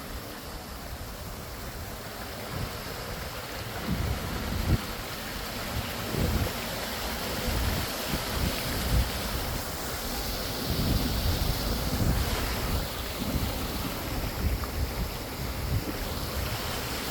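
Wind buffeting the microphone in irregular gusts over a steady rush of water.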